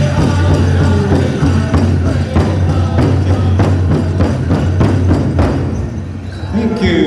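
Powwow drum group singing a chicken dance song, the big drum struck about three times a second. The song fades about six seconds in, and a man starts talking near the end.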